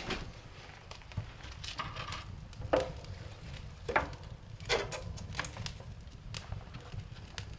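Kindling fire of twigs and wood shavings crackling in a woodstove firebox, with sharp irregular pops about once a second. Wood knocks as a stick is laid on the burning twigs.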